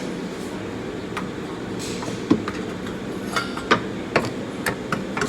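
Sharp metallic clinks and knocks of tools and steering rack parts being handled and fitted, irregular and about a second apart, over a steady background hum.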